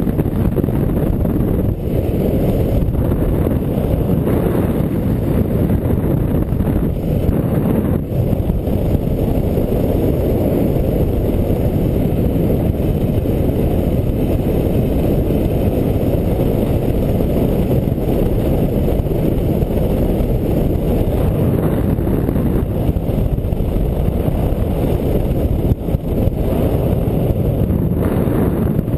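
Steady, loud wind rushing over the microphone of a paraglider pilot's camera in flight.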